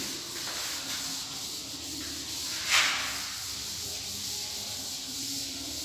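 Chalkboard duster rubbing across a chalkboard, wiping off chalk: a steady rubbing, with one louder swipe a little under three seconds in.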